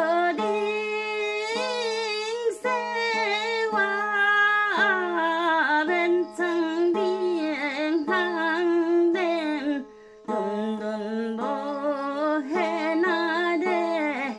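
A woman singing a Kirati folk song in a wavering voice, accompanied by a one-string plucked instrument with a bamboo neck and a small round drum-like resonator, struck about once a second over a steady drone. The singing breaks off briefly about ten seconds in.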